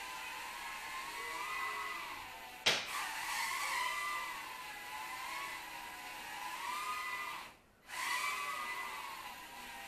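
Micro quadcopter's coreless brushed motors and propellers whining, the pitch rising and falling as the throttle changes. A sharp knock comes a little under three seconds in, and near the end the whine cuts out for a fraction of a second, then picks up again.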